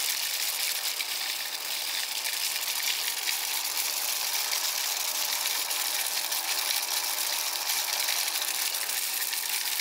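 Homemade rice huller built from a bench grinder, running with paddy fed in: a steady, high hiss of grain rushing through and being husked.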